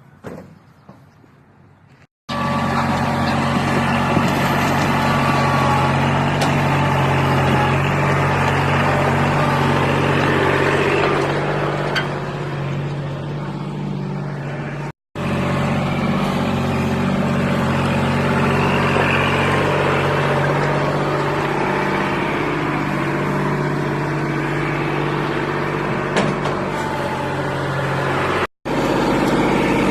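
A large engine running steadily, in three stretches cut together, with a hard break about halfway through and another near the end.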